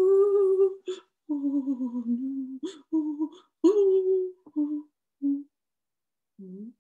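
A woman's voice making wordless, frightened little sounds for a scared puppet: wavering, sliding tones broken by sharp breaths. The sounds grow shorter and quieter toward the end.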